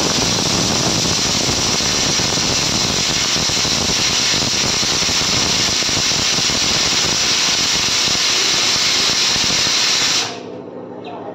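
Stovetop pressure cooker whistling: steam jetting out under its weight valve in a loud, steady hiss, the sign that the cooker has come up to pressure. The hiss cuts off suddenly about ten seconds in, leaving a faint hum.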